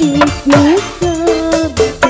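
Live dangdut band music with a steady fast drum beat, low drum notes that drop in pitch, and a melody line that slides between held notes.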